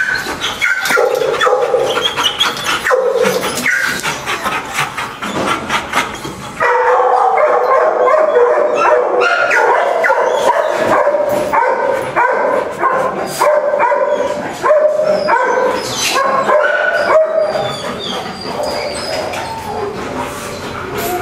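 Many kennelled shelter dogs barking over one another in a continuous chorus, which gets louder about seven seconds in.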